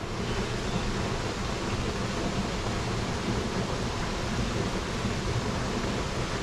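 Steady rushing of flowing river water, an even hiss with no breaks or distinct events.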